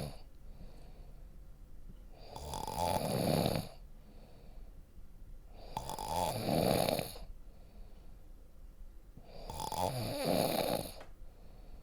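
Deep snoring: three loud snores about three and a half seconds apart, each lasting about a second and a half.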